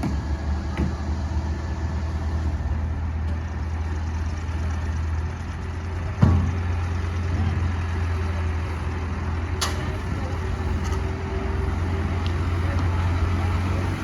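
Large vehicle engine running steadily with a low hum, with a single knock about six seconds in and a short sharp click later.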